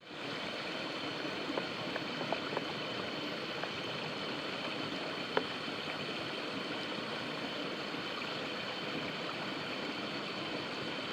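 Steady rushing of flowing water, with a few faint clicks in the first half.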